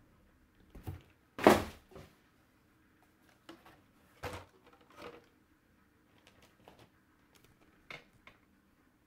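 Packaging and parts of a radio-controlled stadium truck kit being handled: scattered light knocks and clicks. The loudest is a short clatter about one and a half seconds in.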